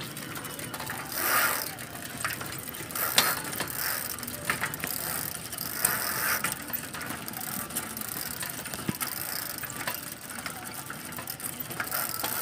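Bicycle ridden along with its freewheel ratcheting and chain clicking, a stream of irregular small clicks.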